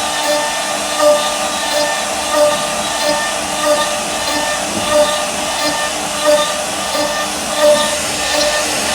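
CNC router spindle cutting wood: a steady whine over a noisy rush, swelling in a regular pulse about every two-thirds of a second as the bit works through the cut.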